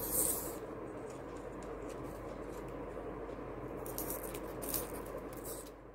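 Faint handling sounds: soft rustles and light clicks as thermocol (polystyrene foam) balls are slid along a thin broomstick, over a steady background hiss.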